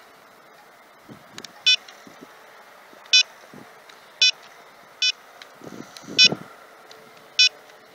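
Six short electronic beeps at irregular gaps of about a second, with soft handling thumps between them. They come from a telescope mount's hand controller as its direction keys are pressed to slew the telescope.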